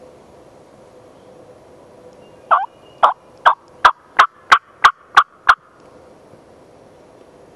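A run of about nine short, sharp turkey yelps, roughly three a second and quickening slightly, starting about two and a half seconds in and stopping about three seconds later.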